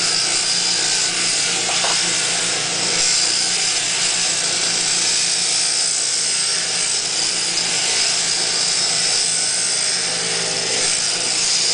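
Sheep-shearing handpiece, driven by an overhead shearing machine through a jointed down tube, running steadily as it cuts through a sheep's fleece.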